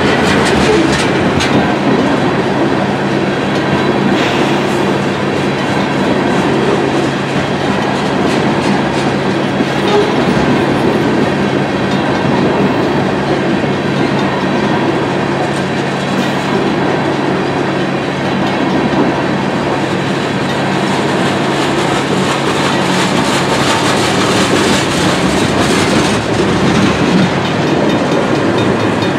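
Freight cars of a long train rolling past close by: steel wheels on the rail making a steady, loud rumble with clickety-clack. Black tank cars give way to empty rail flatcars near the end.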